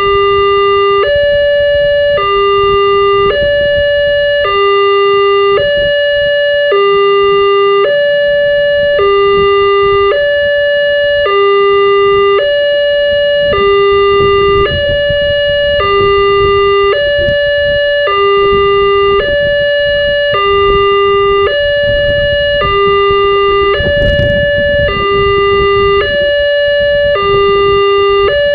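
Wantech railway level-crossing alarm sounding its electronic two-tone warning, a low and a higher tone alternating, each held for about a second, repeating steadily. A brief click about three quarters of the way through.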